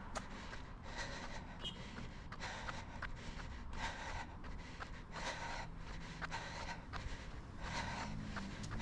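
A runner's heavy breathing, close to the microphone, with a hard breath about every second and a half, from jogging up a steep grade. Short footfall clicks and a steady low rumble lie underneath.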